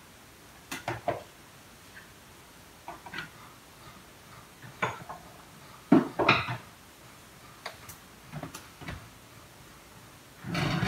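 Kitchen clatter: scattered knocks and clunks of dishes and things being picked up and set down on a countertop, the loudest about six seconds in, with a longer, rougher clatter near the end.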